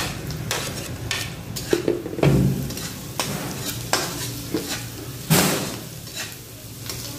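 Spatula scraping and knocking against a wok as diced pork belly is stir-fried with garlic and onion, the pork sizzling in hot oil underneath. The strokes come irregularly, with the loudest scrapes about two seconds in and again about five seconds in.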